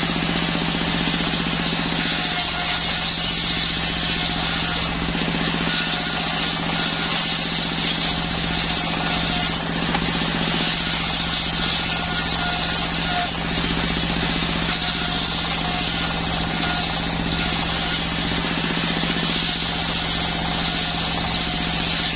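Machine circular saw (serkel) for sawing timber running steadily: a constant low hum with a steady high whine over it, and faint tones coming and going as the blade works the waru wood.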